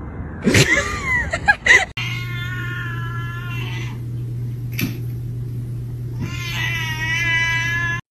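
A cat yowling: a few short wavering cries, then two long drawn-out yowls of about two seconds each, over a steady low hum.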